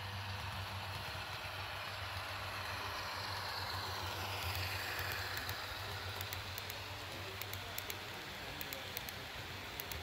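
Sound-equipped model of an Amtrak P32-8BWH diesel passing at close range, its decoder's engine sound a steady low hum, with a rising and falling rush as the train goes by. In the second half, sharp clicks come as the model cars roll over the rail joints.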